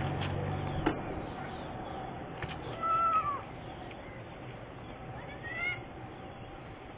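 Two short high-pitched animal calls, the first rising and falling, the second shorter and rising, a couple of seconds apart over steady background noise. A single sharp knock comes about a second in.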